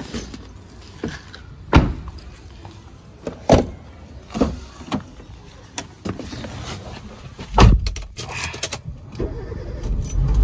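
Suzuki Swift hatchback being loaded and boarded: a string of sharp knocks and thuds of a bag set on the rear seat and doors shutting, the loudest a heavy door slam a little past halfway. Right at the end the engine cranks and starts.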